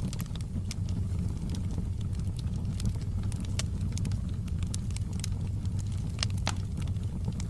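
Wood fire burning in a fireplace: a steady low rumble of the flames with irregular sharp crackles and pops of burning logs, one louder pop about six seconds in.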